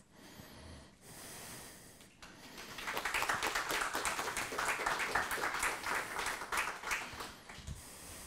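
Audience applauding: a dense patter of many hands clapping that swells about three seconds in and dies away near the end.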